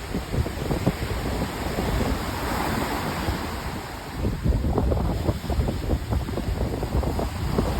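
Wind buffeting the microphone with crackling gusts over surf washing on the beach. The surf hiss swells about two to three seconds in.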